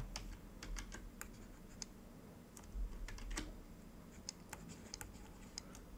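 Faint, irregular light clicks and taps of a plastic stylus on a drawing tablet while handwriting.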